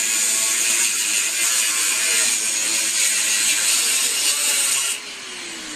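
MIG welder arc crackling steadily as a bead is laid on steel, cutting off abruptly about five seconds in when the trigger is released.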